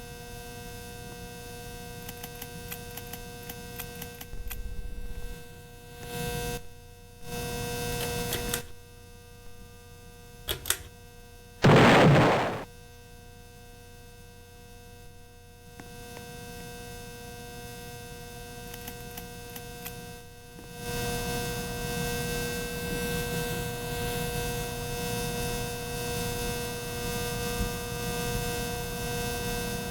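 Ceiling fan running with a loud electrical hum of several steady held tones over a rough rumble. A short, loud burst of noise about twelve seconds in is the loudest moment, and the hum grows louder and rougher over the last third.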